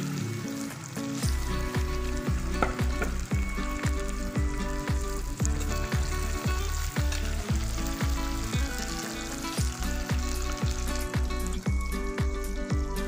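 Potato fries sizzling in hot oil in a two-handled wok, with a steady frying hiss, and a metal spoon stirring them partway through. Background music with a steady beat and bass comes in about a second in and is as loud as the frying.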